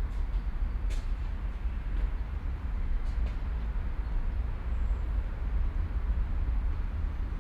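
City park ambience dominated by a steady low rumble of city traffic, with a couple of faint sharp ticks about one and three seconds in.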